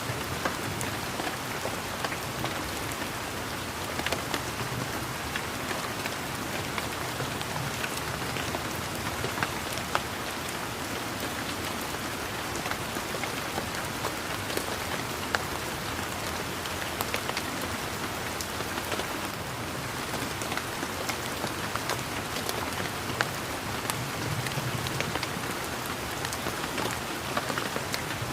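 Steady rain falling, with a dense patter of individual raindrops ticking sharply on leaves and surfaces.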